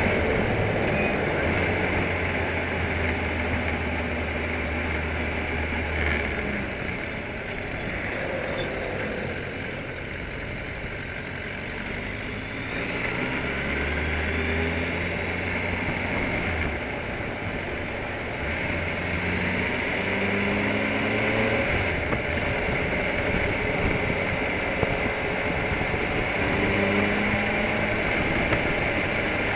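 Car engine and road noise while driving, the engine's pitch climbing several times as the car accelerates.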